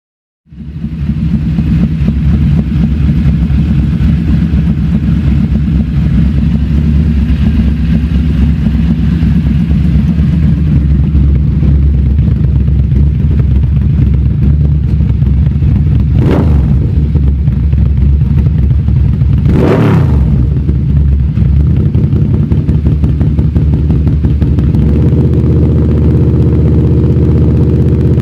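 Yamaha V-MAX 1700's 1,679 cc V4 engine running through a Voodoo Race Slip-On aftermarket exhaust, a steady deep rumble. About two-thirds of the way through come two short sharp sounds about three seconds apart.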